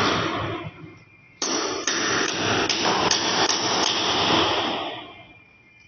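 Loud power tool running in a hard-walled space, with a regular click about two or three times a second. It cuts out just before a second in, starts again suddenly about a second and a half in, and dies away gradually near the end.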